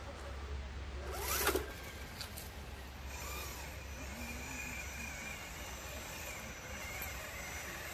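Electric drive of a scale RC rock crawler: a brief rev with a rising whine about a second and a half in, then a faint steady high motor-and-gear whine as a truck crawls slowly.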